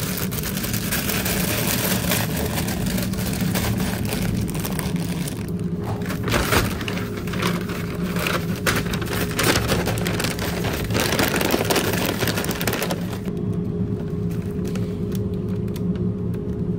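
Brown paper takeaway bag rustling and crinkling as it is handled and its top folded shut, in many irregular crackles, over a steady low kitchen hum.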